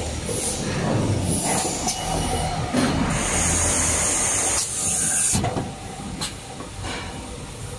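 Compressed air hissing out of an air bottle washer's nozzles in bursts, with a long blast from about three to five seconds in, over the running of the machine and its conveyor. After the long blast it turns quieter, with short clicks and knocks.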